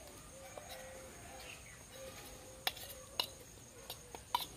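Metal spoon clinking sharply against a steel bowl a few times in the second half, over a faint steady insect drone and a bird calling softly.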